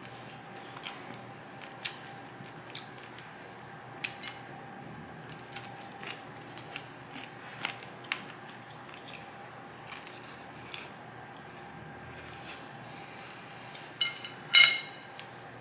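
Kitchen utensils and tableware handled: scattered light clicks and taps, then a louder ringing clink about a second before the end.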